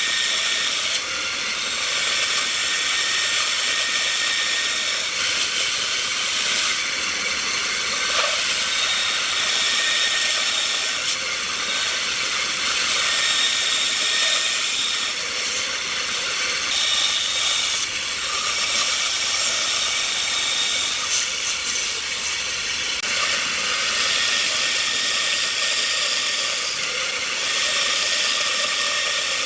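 A tool working wood, making a steady rasping hiss with no pauses.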